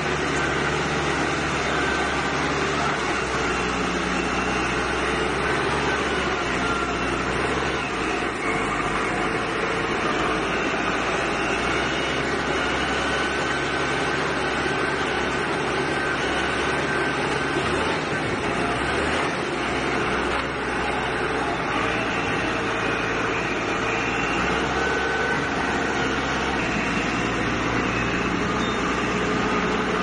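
Diesel engine of a compact four-wheel-drive backhoe loader running steadily under load as it drives and pushes gravel with its front bucket. Its note shifts a few times as it works.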